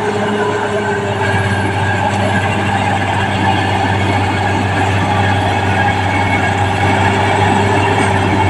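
Caterpillar D6R crawler bulldozer's diesel engine running steadily and loudly under load, with a rattling clatter from the steel tracks.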